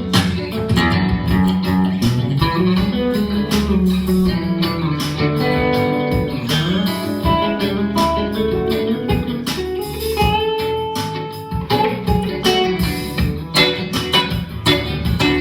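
A 2021 Squier Classic Vibe electric guitar playing a melodic lead line of single notes, with one long held note about two-thirds of the way through.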